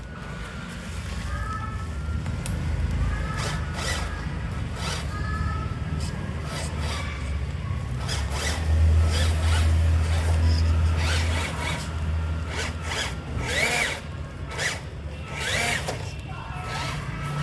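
Micro-scale RC crawler's small electric motor and gearbox whining as it drives in bursts through loose sand, with scattered scrapes and crunches from the tyres. The motor is loudest for a couple of seconds about nine seconds in.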